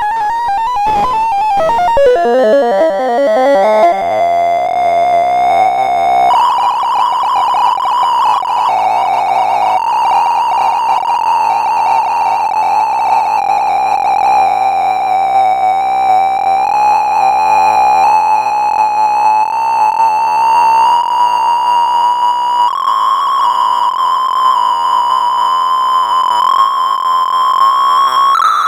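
Synthesized tones of a sorting-algorithm sonification. The tones jump rapidly in pitch for the first couple of seconds, then merge into one held tone that drifts slowly in pitch with a few small steps and rises near the end.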